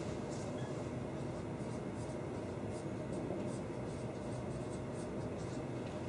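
Marker writing on a whiteboard: a run of short, scratchy strokes over a steady low background hum.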